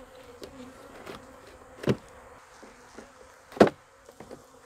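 Honeybees buzzing steadily around an open hive. Two short, much louder sounds stand out, about two seconds in and again about three and a half seconds in.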